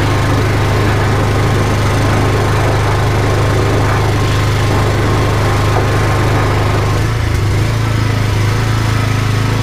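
Drain jetting machine's small engine running at a steady drone while the jetting hose works in the drain. About seven seconds in, the rougher noise above the engine eases.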